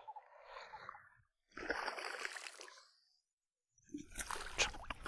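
Water splashing and sloshing in uneven bursts as a hooked fish thrashes at the surface during the fight, with a short lull about three seconds in.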